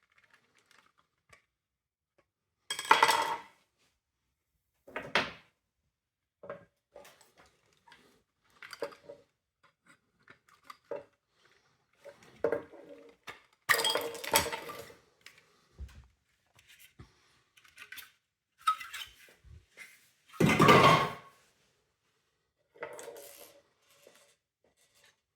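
Hard plastic parts and small tools being handled and set down while a window vacuum cleaner is taken apart: scattered clicks, knocks and clatters with gaps between. The loudest clatters come about three seconds in and again about three-quarters of the way through.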